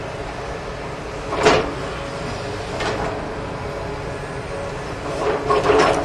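Tracked hydraulic excavator's diesel engine running steadily, with short, loud noisy bursts as the bucket digs and dumps soil: one about a second and a half in, a weaker one near three seconds, and a cluster near the end.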